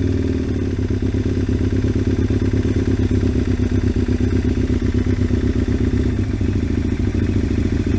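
Aprilia RSV Mille 1000's V-twin engine idling steadily through a loud Giannelli aftermarket silencer. It is warming up from a cold start with the choke being eased off.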